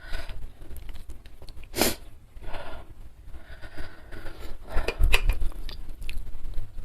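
Close-miked eating and food-handling sounds: chewing with scattered sharp crunches and clicks, the loudest about two and five seconds in.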